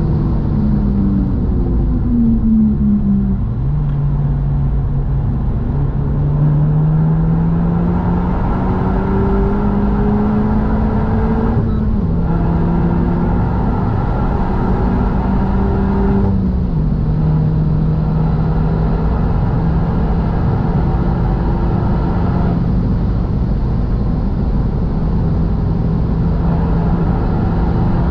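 In-cabin sound of a Renault Mégane RS Trophy-R's turbocharged four-cylinder engine at speed over steady tyre and wind noise. The engine note steps down during the first few seconds, climbs steadily, and then drops at two brief breaks about 12 and 16 seconds in, the gear changes, before holding steady under power.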